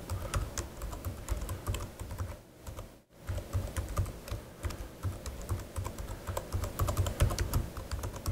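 Typing on a computer keyboard: a quick run of keystrokes, with a short pause about three seconds in.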